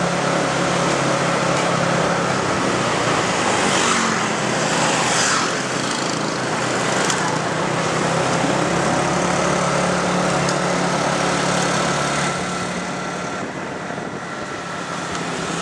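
Motorbike engine running steadily while riding along a town street, with wind and road noise over the microphone and other traffic passing.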